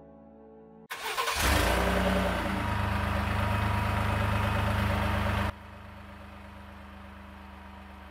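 Pickup truck engine starting up, revving briefly and settling into a steady idle, heard close at the tailpipe. About five seconds in it drops to a much quieter, muffled idle heard from inside the cab.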